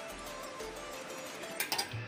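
Soft background music with short melodic notes. Near the end there are a few quick clinks from a steel bowl being handled.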